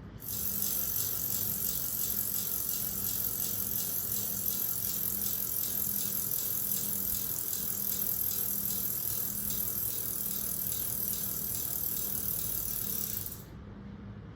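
A played sound effect of a steady, high-pitched rattling hiss that starts abruptly and cuts off suddenly after about thirteen seconds.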